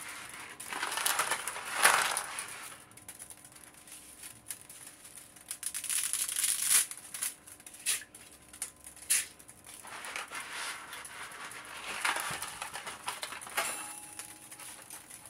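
Dry linguine being pushed down into a pot of water by hand: the stiff strands click, crackle and scrape against the metal pot in several short bursts.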